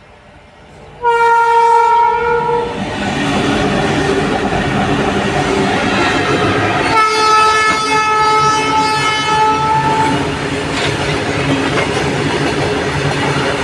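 Railway locomotive horn sounding two long blasts, the first about a second in and lasting nearly two seconds, the second starting about seven seconds in and held for about three. Between and under the blasts the train runs past with steady rumble and clickety-clack of wheels on the rails.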